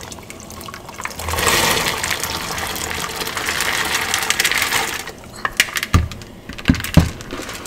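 Soaked pinto beans pouring out of a plastic bowl into a pot of boiling water: a few seconds of splashing with a dense patter of beans tumbling in. Near the end come a few sharp knocks.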